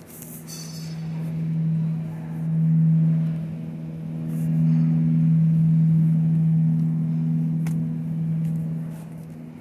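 Steady low electrical hum of a refrigerated meat display case, holding one pitch and swelling louder and softer several times.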